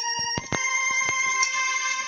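Background music of held, overlapping tones, with a few sharp percussive hits about half a second in.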